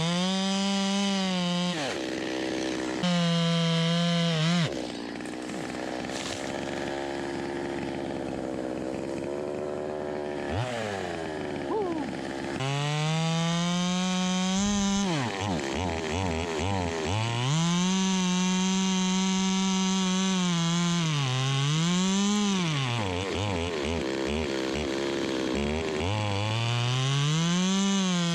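Chainsaw running and being revved up and down over and over, its pitch climbing and dropping with each rev. For several seconds in the first half it holds a quieter, steadier note.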